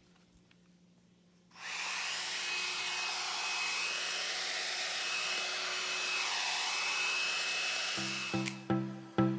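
A one-step hair dryer and styler (hot-air brush) is switched on about a second and a half in and blows steadily with a thin high motor whine, its rush of air shifting briefly as it moves through the hair. Near the end it gives way to music of plucked notes.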